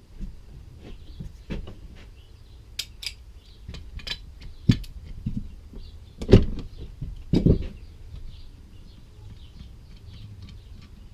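Wrench and metal carburetor parts clicking and knocking as a threaded fitting, sealed with Teflon tape, is loosened and set down. About a dozen separate knocks, the loudest two around six and seven and a half seconds in, over a low steady hum.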